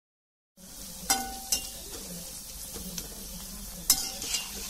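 Small cabbage-and-maida batter balls deep-frying in hot oil, sizzling steadily from about half a second in. Three sharp knocks of a utensil against the pan, the loudest about four seconds in.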